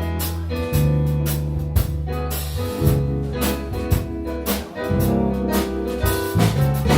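Instrumental band music: a drum kit keeping a steady beat under a strong bass line and sustained guitar and keyboard chords.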